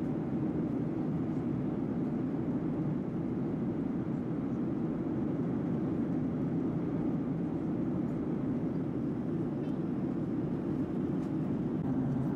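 Steady low drone inside the cabin of a Boeing 737-800 at cruise: rushing airflow and its CFM56-7B turbofan engines, heard from a window seat.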